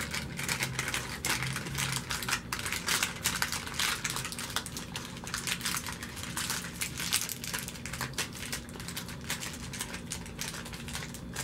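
Shiny foil-lined wrapper crinkling and crackling as hands fold and press it closed around an ice cream sandwich: a dense run of small crackles that eases off somewhat near the end.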